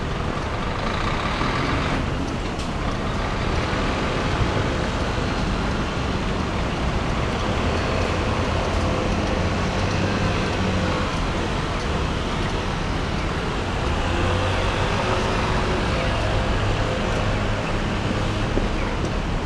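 Steady road traffic: car and bus engines running and tyres on the road, under a deep engine rumble that grows stronger in the last few seconds.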